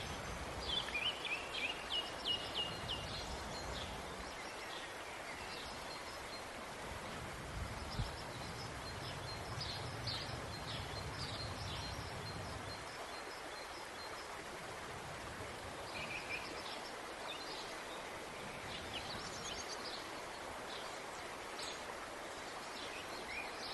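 Outdoor ambience: small birds chirping in runs of short, high calls over a steady background hiss, with a brief low rumble around the middle.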